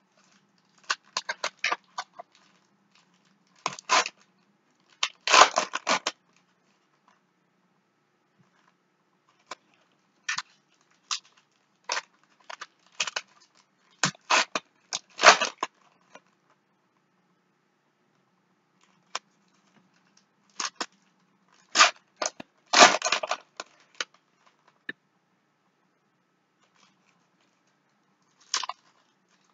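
Foil trading-card pack wrappers crinkling and tearing open in repeated short bursts of crackle, with quiet pauses between them. The loudest rips come about five seconds in and again just past twenty seconds.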